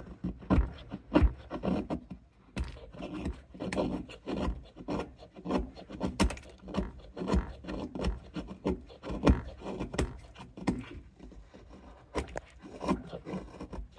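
A camp knife blade shaving curls off a stick of Sherpa fire-starting wood, a run of short, irregular scraping strokes.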